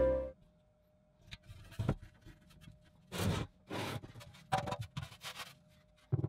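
A rusty metal can being handled on a benchtop: a string of short scrapes, knocks and clunks as it is picked up, turned over and set down.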